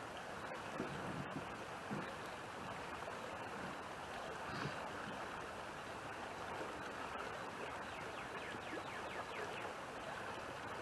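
Steady outdoor rushing noise, with a few faint knocks and crunches of loose rock as a man shifts about and walks over rock fill.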